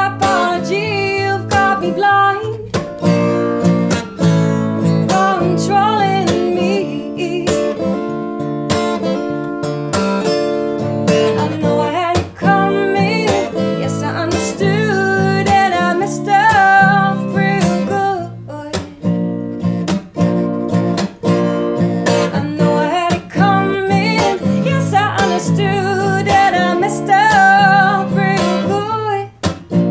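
A woman singing, accompanied by her own acoustic guitar played in a steady strummed rhythm.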